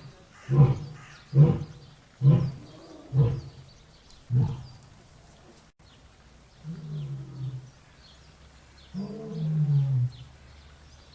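Lion roaring: five short, deep grunts about a second apart, fading and spacing out as a roaring bout ends. After a pause come two longer, softer low moans, the second falling in pitch, which begin the next bout.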